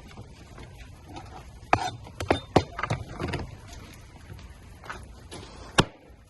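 Sharp cracks and knocks of king crab shell being broken apart and handled during cleaning. There is a quick cluster of them about two seconds in and one last loud crack near the end.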